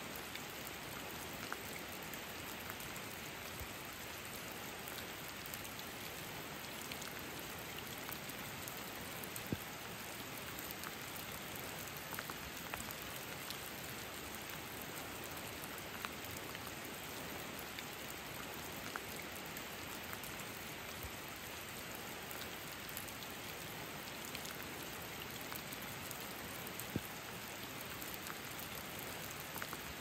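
Steady rain falling through a conifer forest: an even hiss with scattered single drops ticking onto leaves and branches, a couple of them sharper.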